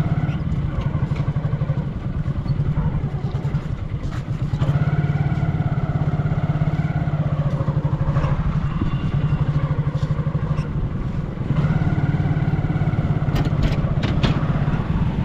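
Motorcycle engine running steadily as the bike is ridden, with higher-pitched tones joining in two stretches, about five seconds in and again near the end.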